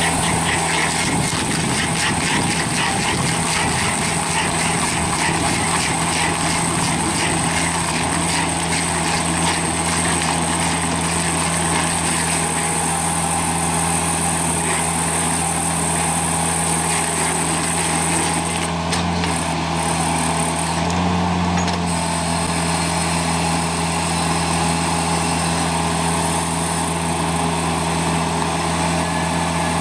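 Engine of a heavy machine running steadily, with a dense crackling chatter over roughly the first twelve seconds.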